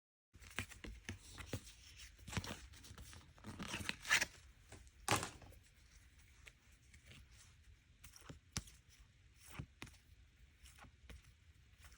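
Small sealed photocard pack being torn open and its cards handled: a few short tearing and crinkling rustles, then scattered light clicks.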